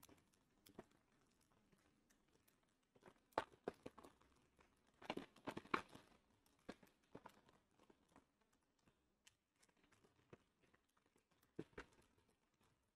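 Faint, sparse crinkles and rustles of a plastic anti-static bag handled in rubber gloves, with a short cluster about five to six seconds in and a few more near the end.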